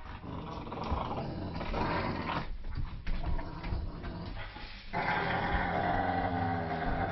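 Dog growling in play while tugging on a toy in tug of war, a rough continuous growl that grows louder and steadier about five seconds in.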